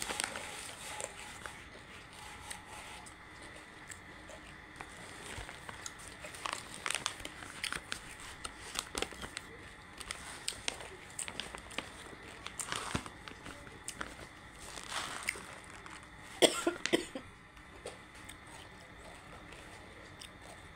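Close-up chewing of crunchy banslochan (tabasheer, the chalky silica from bamboo): irregular crisp crunches and crackles in the mouth, with a louder burst of crunching about sixteen seconds in.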